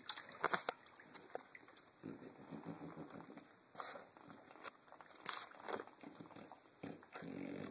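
French Bulldog snorting and snuffling in several short spells, with a couple of sharp clicks near the start.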